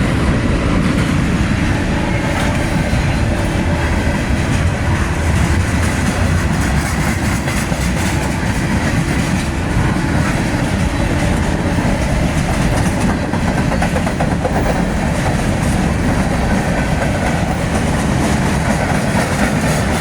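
Freight cars of a manifest train rolling past at steady speed, a continuous rumble of steel wheels on rail with clicking over the rail joints.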